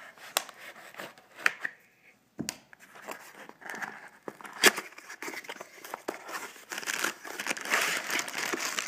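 A small cardboard box opened by hand, its flaps scraping and clicking, then a clear plastic bag of cables pulled out and crinkling, thickest over the last couple of seconds.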